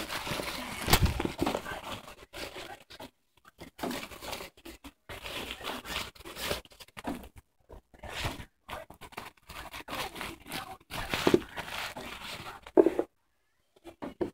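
Crinkling and rustling of a doll's diaper and clothes being handled close to the microphone, in irregular bursts with a sharp knock about a second in.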